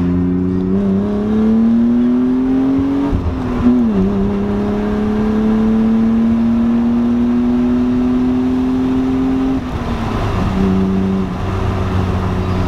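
A BMW's engine heard from inside the cabin, pulling the car up through the gears in a slow acceleration. Its pitch climbs gradually, drops at a gear change about three seconds in, climbs again for several seconds, then drops at another shift near ten seconds and holds steady.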